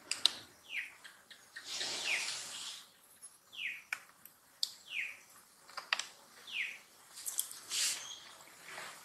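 A bird repeating a short, high call that falls in pitch, five times about a second and a half apart, with a few sharp clicks and two brief rushing noises in between.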